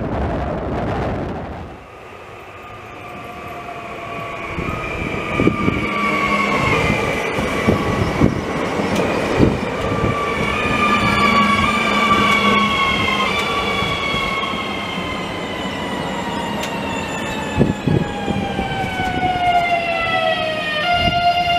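Škoda RegioPanter electric multiple unit passing close by. A whine in several tones that step down in pitch, typical of its traction converters and motors, rises about two seconds in, with a few sharp clicks from the wheels on the rails.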